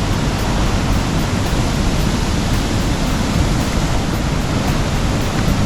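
Twin waterfalls pouring into a pool: a steady, loud rush of falling water.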